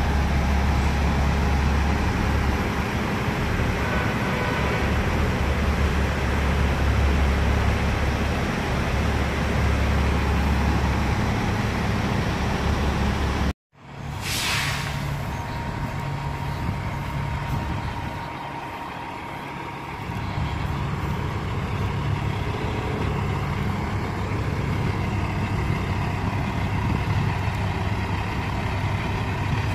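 Semi-truck diesel engines running with a steady low rumble. The sound cuts off abruptly partway through, then a short sharp hiss of air comes, and the engines carry on a little more quietly.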